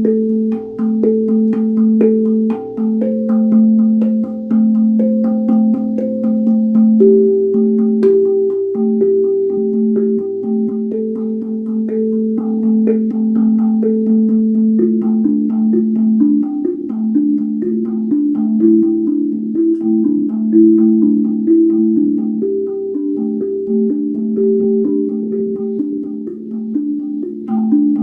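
Guda steel tongue drum played by hand: a steady stream of struck notes that ring on and overlap, over a low note held near 220 Hz. About halfway through the notes above it change to a quicker, busier pattern.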